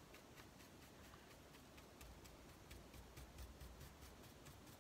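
Near silence with faint, rapid ticks, about six a second: the stiff bristles of a paintbrush being scrubbed back and forth over a plaster model rock face while dry-brushing.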